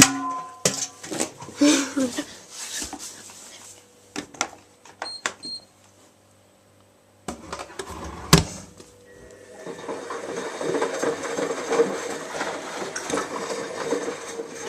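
Handling clatter and knocks, then a single sharp click about eight seconds in. After that a Zanussi washing machine starts drawing in water, a steady rushing of the water inlet that carries on to the end.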